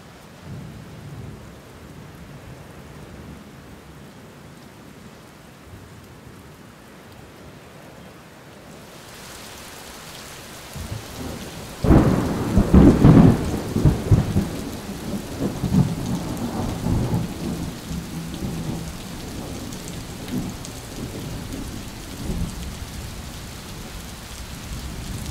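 Rain and thunder. The rain hiss grows fuller about a third of the way in; then a sudden loud thunderclap breaks into a rolling rumble that dies away over several seconds while the rain goes on.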